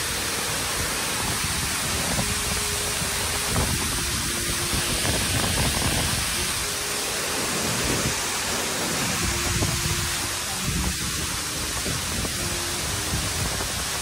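Waterfall crashing into its plunge pool: a steady rush of falling water.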